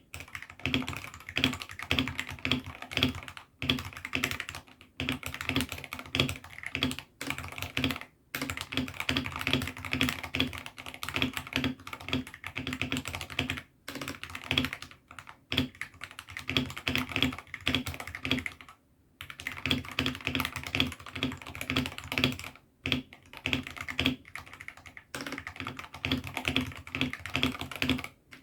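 Fast continuous typing on a hot-swappable mechanical keyboard fitted with AKKO Sakura switches: dense runs of key clicks and clacks, broken by a few brief pauses.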